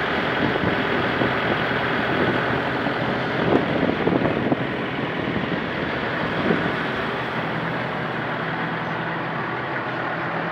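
Vehicle engine idling steadily in stalled traffic, heard from inside the cab, with a few brief louder noises about three and a half to four and a half seconds in and again near six and a half seconds.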